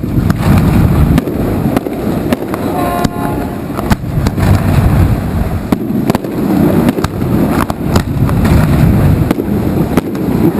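Fireworks display bursting overhead: a continuous low rumble of booms with many sharp bangs and cracks in quick succession.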